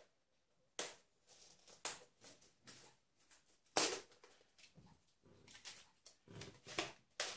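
Plastic packaging and small plastic toy parts handled and unwrapped by hand: several sharp crackles and clicks with soft rustling between them.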